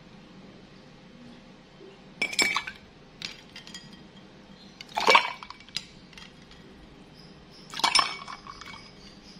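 A metal ladle clinking against a glass bowl and ice cubes while scooping an iced drink and pouring it into a drinking glass: three loud clusters of clinks roughly three seconds apart, with a few lighter taps between.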